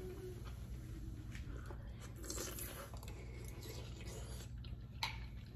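Quiet chewing of a spoonful of gumbo close to the microphone, with a few faint clicks of spoons against glass bowls.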